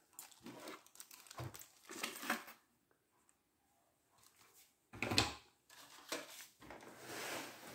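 Unboxing handling noise: light rustles and clicks of a plastic accessory bag and cardboard packaging, a louder knock about five seconds in, then a rustling scrape near the end as hands reach into the box around the toy truck.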